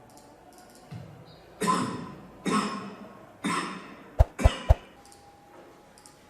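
Three coughs about a second apart, a recorded cough sample from a symptomatic COVID-19 patient played back. They are followed by three sharp clicks in quick succession.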